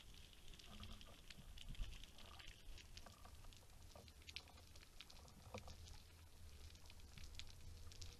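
Faint underwater ambience heard with the microphone below the surface: scattered, irregular clicks and crackles over a low rumble.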